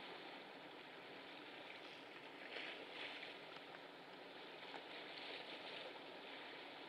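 Small waves lapping at the river's edge: a faint steady wash with a few slightly louder splashes.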